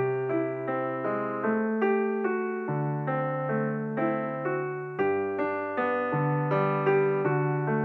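Background piano music: an even run of single notes over held low bass notes.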